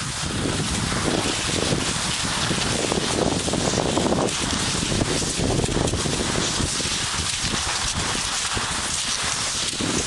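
Dense, crackling rush of noise from cross-country skiing with the camera in hand: skis sliding and crunching over snow, with wind and handling noise on the microphone.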